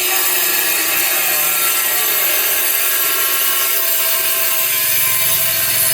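A machine running steadily: a loud, even whine with several steady tones over a hiss, unchanged throughout.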